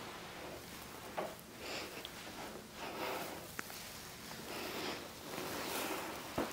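Faint rustling and soft breathing from a person lying still on a yoga mat, with a few small clicks, the sharpest near the end.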